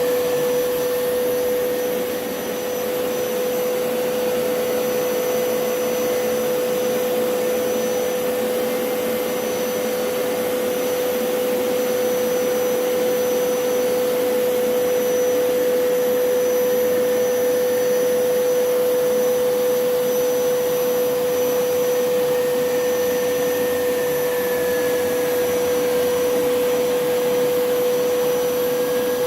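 Hoover PowerScrub Elite carpet cleaner running steadily: a constant motor whine over a rushing noise.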